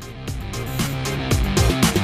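Background music with a steady beat, getting louder.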